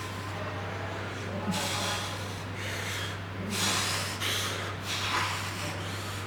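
A person breathing hard in short, hissing exhales, several of them about a second apart, over a steady low hum.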